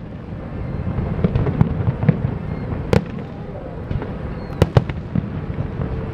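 Fireworks display: aerial shells bursting in sharp bangs over a steady low rumble, the loudest bang about three seconds in and two close together near five seconds.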